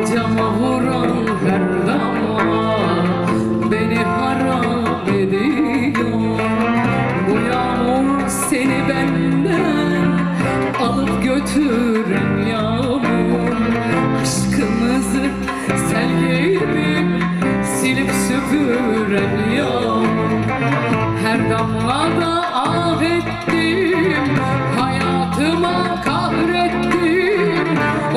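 A woman singing a Turkish song live with a band: violin, plucked strings and bass guitar accompany her, with no breaks.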